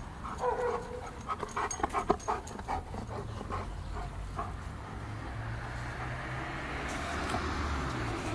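Giant Schnauzer panting and scuffling, with a short whine about half a second in and a quick run of clicks and scrapes over the next two seconds. From about three seconds in, a steady low rumble sets in and slowly grows.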